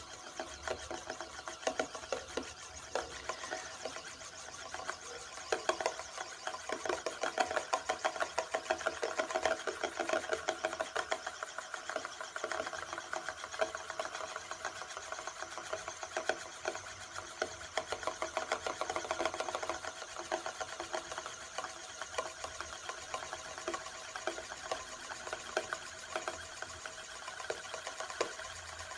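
Euler's disk, a heavy metal disk, spinning and rolling on its edge on a mirror base. It makes a steady, fast, whirring rattle as the disk works against gravity, its spin slowly decaying.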